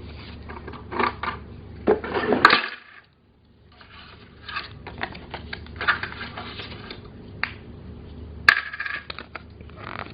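Toy cash register and its play money being handled, with a series of sharp plastic clicks and clatters like coins dropping into the drawer. The loudest clatters come about two seconds in and again near the end.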